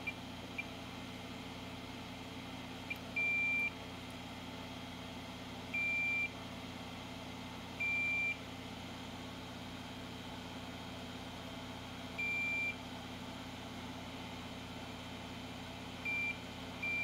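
Continuity beeper of a Fluke digital multimeter giving six short beeps at one high pitch, a couple of seconds apart, each time the probes bridge two points on a logic-board trace. Each beep signals an unbroken trace at near-zero resistance. A steady low hum runs beneath.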